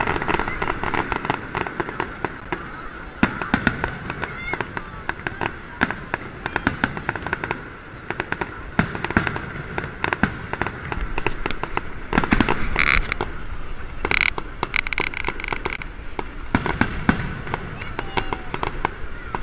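Aerial fireworks display: shells bursting in a rapid run of bangs and crackles, with crowd voices underneath. A few short held horn-like tones sound about two-thirds of the way in.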